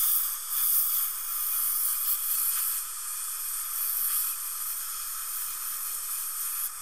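Dental air syringe blowing compressed air to dry the prepared tooth after its bonding-agent coats, a steady hiss that eases off near the end.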